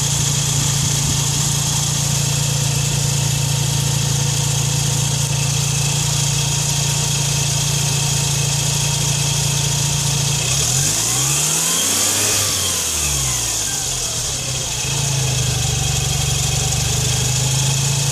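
Mazda RX-7 rotary engine idling steadily with only the alternator belt driving its accessories. About ten seconds in it is revved once, the pitch climbing and falling back over about four seconds, then it settles back to idle.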